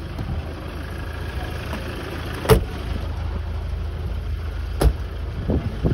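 Two car doors slam, the first about two and a half seconds in and louder, the second a couple of seconds later, over the low, steady rumble of a car.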